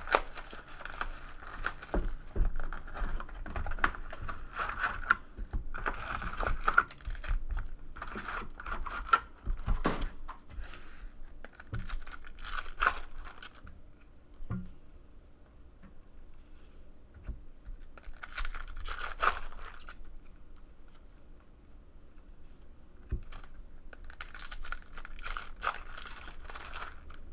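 Trading-card box packaging being torn open and crinkled by hand, in several spells of ripping and rustling with quieter pauses between.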